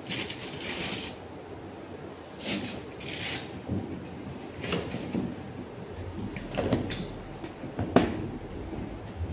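Scattered scuffs and rustles with a few knocks, the sharpest about eight seconds in: a person moving about on artificial turf, gathering up practice balls.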